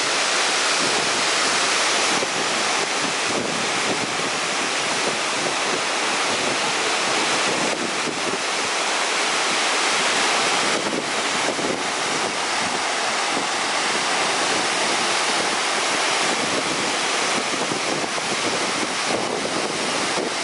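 Waterfall: water falling and crashing onto rocks in a steady, unbroken rush.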